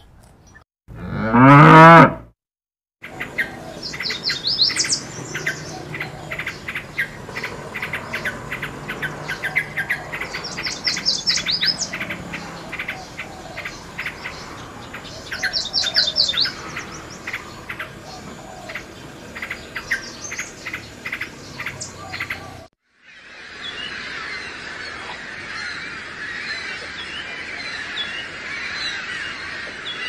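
A Holstein cow moos once, loudly, about a second in, the call rising in pitch. Then a bulbul sings, repeating quick bubbly phrases with short high trills. Near the end the sound cuts to a dense, continuous chatter of many birds.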